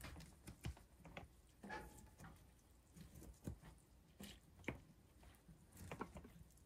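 Faint scattered clicks, taps and soft squishes of a wooden stick being worked down into glass canning jars packed with coleslaw and brine, freeing trapped air bubbles before the lids go on.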